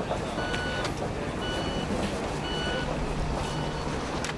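A vehicle's reversing alarm beeping about once a second over a steady engine rumble, with a couple of sharp clicks.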